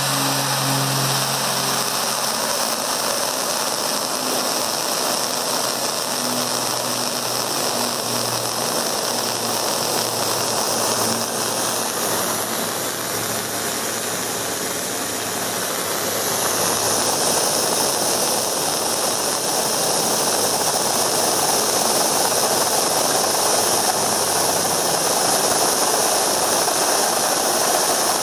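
Steam hissing steadily from a small brass valve on a hand-built model steam boiler, venting a jet to air. The hiss eases slightly about halfway through, then grows a little louder.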